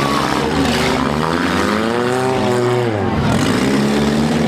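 Several compact-car engines revving together, their pitches rising and falling, with the noise of crowd and arena mixed in.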